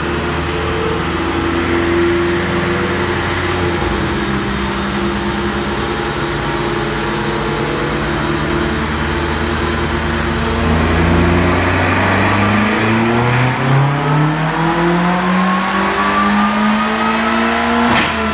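Turbocharged VW 1.8T four-cylinder engine with an F21T hybrid turbo, running on a chassis dyno: it holds a steady speed in gear for about ten seconds, then pulls under load with its pitch rising steadily over the last six seconds, ending in a brief sharp burst of noise as the run finishes.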